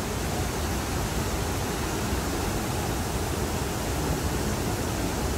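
Steady rushing of white water in the Niagara River rapids tumbling over a rocky cascade, an even noise with no breaks.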